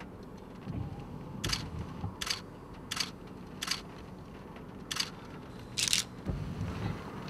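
Six short, sharp clicks at irregular intervals over a steady low rumble.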